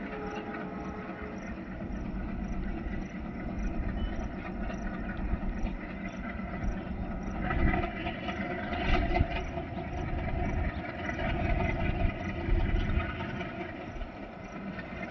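Twin ALCO WDM3A diesel locomotives, 16-cylinder engines, working hard to haul an express up a gradient. The engines chug steadily and grow louder as the train approaches. A short horn note sounds in the first second or so.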